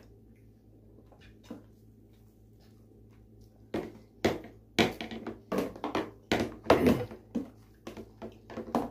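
Quiet room, then from about four seconds in a quick irregular run of sharp knocks and clatter at the dining table.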